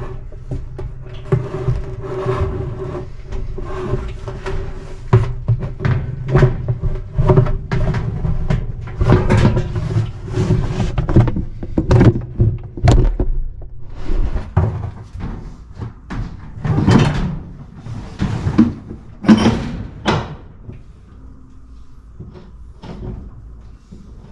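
Irregular knocks, clunks and rattles of washing-machine parts being handled and fitted into the machine, over a steady low hum in the first half; the knocking stops a few seconds before the end.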